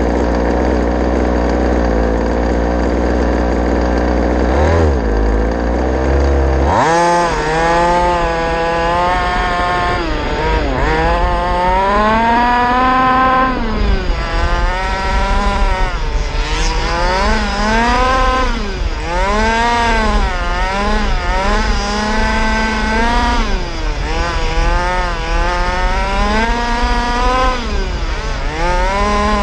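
Onboard sound of a racing RC car's motor. It runs at a steady pitch for the first few seconds, then from about seven seconds in it whines up and down over and over as the throttle is worked, roughly once every one to two seconds.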